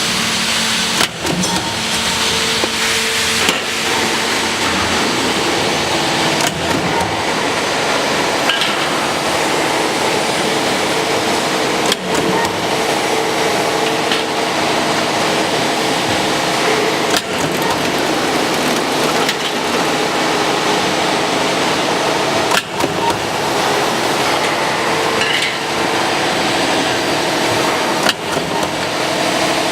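Roll-forming machine for drywall steel profiles running steadily with a continuous mechanical rattle and hum, and a sharp knock every few seconds as the cut-off shear chops each profile to length.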